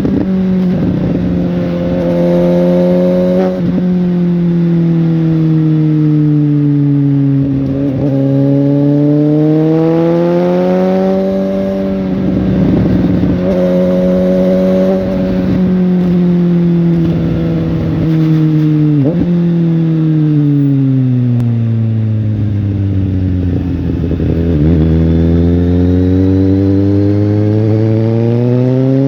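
Suzuki GSX-S750's four-cylinder engine running under way, its pitch falling and rising slowly several times as engine speed changes, with a few brief sharp clicks along the way.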